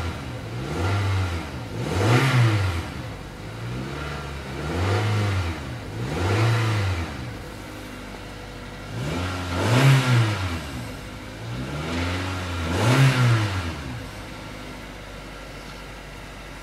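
2005 Toyota Corolla CE's 1.8-litre four-cylinder engine free-revving in park, heard from the driver's seat. A series of throttle blips, each rising to about 3000 rpm and falling back, the strongest about two, ten and thirteen seconds in. The engine settles to a steady idle for the last couple of seconds.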